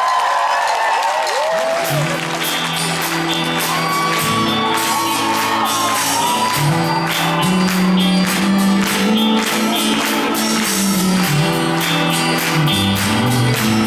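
Rock band playing live, with a bass line and beat coming in about two seconds in. The audience cheers and whistles over the opening.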